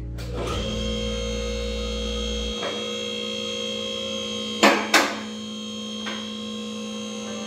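A steady electrical hum, with a few knocks and two loud sharp knocks close together a little past halfway.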